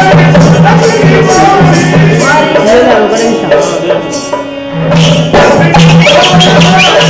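Folk music accompanying a string-puppet show: a singing voice over a regular low drum beat and fast jingling percussion. The percussion drops out for about a second midway, leaving the voice, then comes back in.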